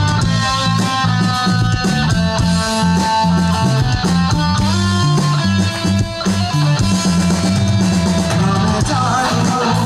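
Live rock band playing: an electric guitar carries a sustained melody with sliding notes over drum kit and bass.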